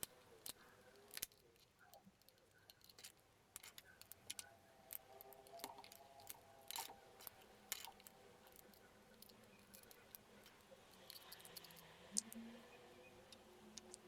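Faint, irregular clicks and taps of hard plastic hair-dryer parts being handled and fitted back together.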